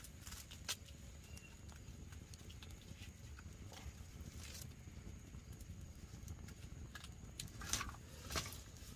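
Wood campfire burning with a low steady rush of flame and scattered sharp pops and cracks, the two loudest close together near the end as sparks fly.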